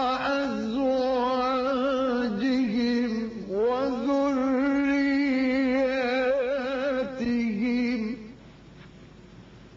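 A man's voice reciting the Quran in the ornamented tajweed style, holding a long vowel with vibrato over two drawn-out phrases, the second starting with a rising glide. It stops about eight seconds in, leaving a faint steady hiss.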